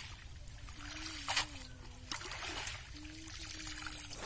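Water dripping and lightly splashing from a wet nylon cast net as it is handled and dipped at the water's edge, with a few sharp splashes, the clearest about a second in. A faint wavering low tone comes and goes twice in the background.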